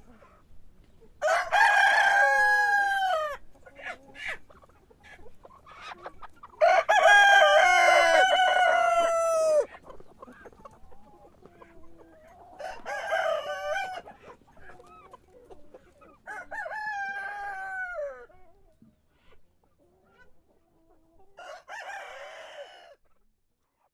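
Roosters crowing five times, each a long cock-a-doodle-doo of about two to three seconds; the second crow is the loudest. Hens cluck faintly between the crows.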